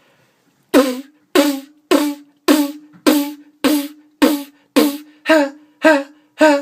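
Beatboxed snare drum made with a lip attack and the voice together, giving each hit a tone like a tuned snare ('hen hen hen'). After a short pause it repeats evenly, about eleven hits a little under two per second, each a sharp crack followed by a brief note at the same pitch.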